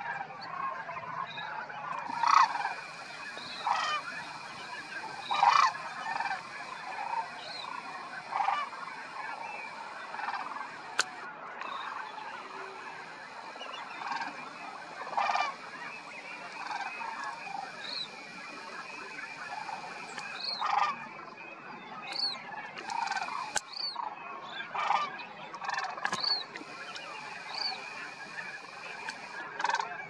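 A flock of sandhill cranes calling: a steady chorus of many birds, with louder single calls from nearer birds every second or two.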